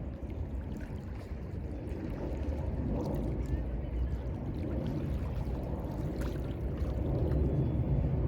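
Mediterranean Sea waves washing and lapping at the shore: a steady low wash of water that grows louder toward the end, with faint small splashes.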